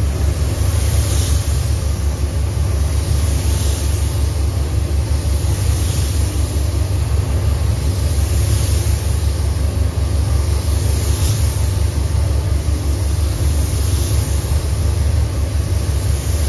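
Steady low rumble of moving air in a spray booth, with the hiss of a gravity-feed spray gun swelling and fading about every two and a half seconds as it sweeps paint along a car's side.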